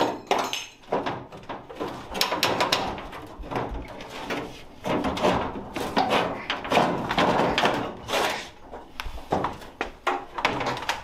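The door glass of a 1976 Chevy K10 being worked out of the door: the pane scraping and clunking against its metal channel and the door frame, with the door rattling, in a series of irregular scrapes and knocks.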